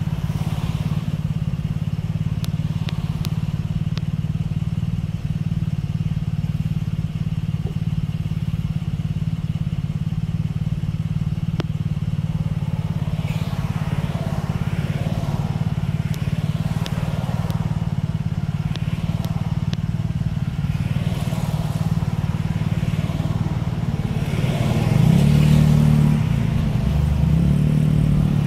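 Engines idling steadily in stopped traffic, heard from inside a car's cabin with a 150cc scooter waiting just ahead. About 25 seconds in the sound gets louder and steps up in pitch as the traffic moves off.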